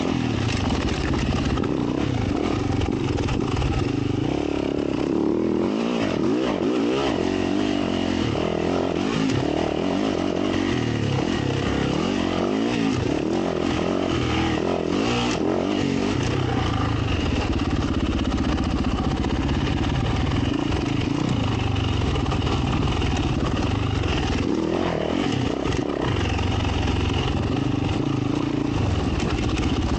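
Dirt bike engine, a 2022 Yamaha YZ450F's four-stroke single, riding a trail with the revs rising and falling over and over as the throttle is worked.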